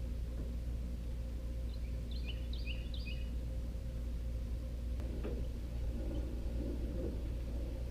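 A steady low hum, with a quick run of about six bird chirps about two seconds in and a single sharp click about five seconds in.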